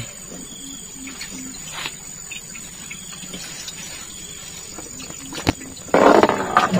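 Steady high-pitched drone of insects, with a sharp click about five and a half seconds in and a loud noisy burst near the end.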